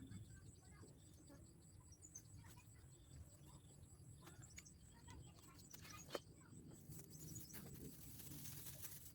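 Near silence: faint rural outdoor ambience with scattered bird chirps and insect sounds, and a single sharp click about six seconds in.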